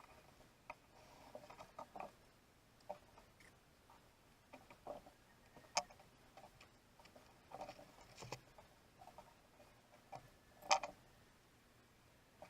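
Scattered light clicks and taps of small objects being handled, irregular rather than a steady tick, with two sharper knocks about six and eleven seconds in.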